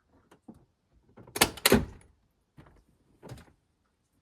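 Ford F350 pickup's driver door being opened from the inside with a newly fitted metal interior door handle: a few light clicks, then two loud clunks of the handle and latch releasing about a second and a half in, and softer knocks of the door after.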